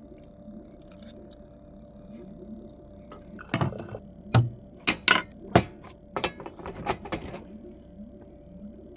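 A utensil clinking and knocking against cookware: a quick run of sharp clicks from about three and a half seconds in until near the end, over a faint steady hum.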